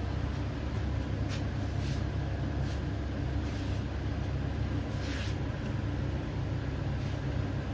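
A steady low mechanical hum, with a few faint clicks and knocks as tools are handled.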